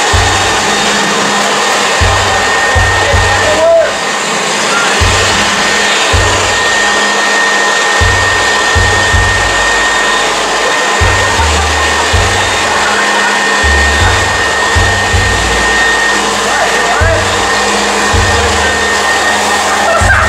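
Electric leaf blower running steadily, blowing air into the inflated plastic garbage-bag skirt of a homemade hovercraft.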